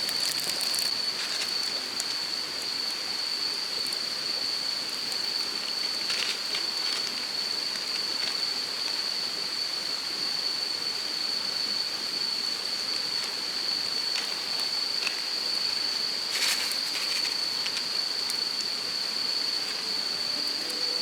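Wood campfire crackling now and then, clusters of pops about six seconds in and again near the end, over a steady even hiss and a constant high-pitched drone.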